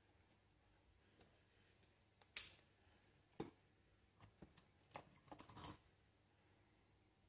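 Sharp clicks and taps from handling a Webley Junior air pistol while reloading it. The loudest click comes about two and a half seconds in, with another a second later and a quick run of lighter clicks around five seconds in.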